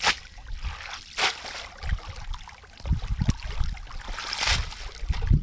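Shallow river water splashing and sloshing in short bursts as a wet cast net is dipped and swished in it, three or four times, with a few low thumps among them.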